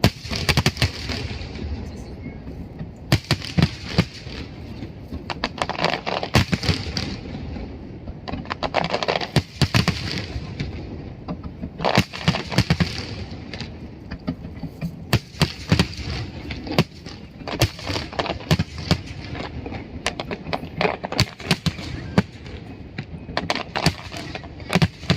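Fireworks display: aerial shells going off in clusters of sharp bangs about every three seconds, with crackling between them.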